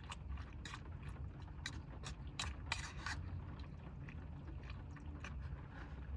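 Utensil scraping and clicking against cookware as food is dished up or eaten, in irregular strokes that are busiest in the first few seconds, over a steady low hum.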